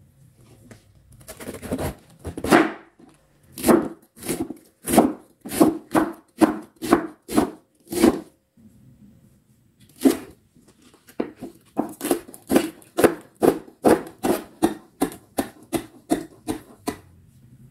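Kitchen knife cutting vegetables on a wooden cutting board: first slicing cabbage, each cut a crisp crunch ending in a knock on the board, about two a second. After a short pause it switches to chopping spring onions, a quicker run of about three cuts a second.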